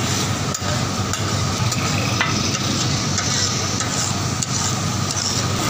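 Minced beef sizzling and steaming on a large flat tawa, with metal spatulas scraping and clacking against the griddle as the qeema is stirred, giving irregular sharp clicks over a steady hiss.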